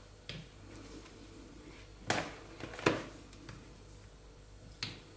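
Raw potato slices being laid by hand into a glass baking dish: soft handling noise with a few light taps, and two sharper knocks about two and three seconds in.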